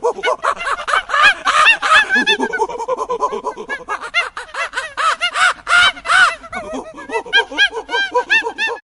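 A flock of birds calling all at once, many short arching calls overlapping in a dense chatter, cutting off suddenly near the end.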